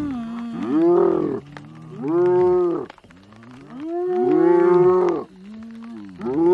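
Spotted hyaenas groaning: a string of drawn-out, low calls, each arching up and down in pitch, with short pauses between them. Near the end one call sweeps steeply upward.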